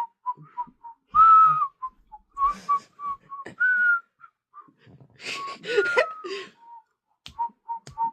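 A person whistling with the lips, trying to sound like a bird: a run of short, clipped notes at about one pitch, broken by a few longer, higher whistles, some sliding down in pitch, with breathy puffs of air among them.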